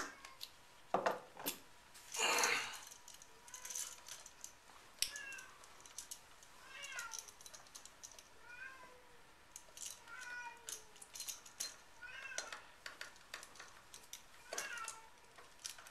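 A house cat meowing over and over, short calls every second or two. Between the calls come sharp clicks and knocks of hand tools and the outlet being handled, and a brief rustle early on.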